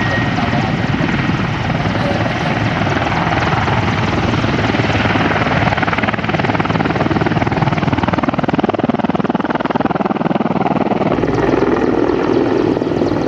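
Mil Mi-24 attack helicopter flying past, its rotor chop and twin turboshaft engines loud and continuous, changing in tone about eleven seconds in.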